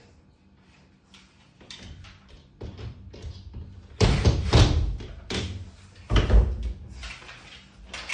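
Irregular clicks and knocks from a T8 LED tube lamp casing being handled and screwed to a ceiling, faint at first, with several loud thuds in the second half.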